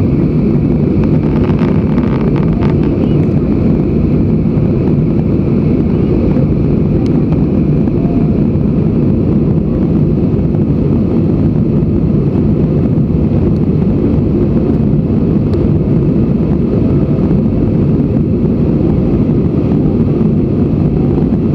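Steady low rumble of jet engines and rushing airflow, heard inside the passenger cabin of a Citilink Airbus A320 climbing after takeoff.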